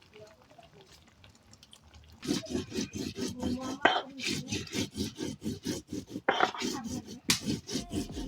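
Rapid rhythmic scraping strokes, about four or five a second, starting about two seconds in.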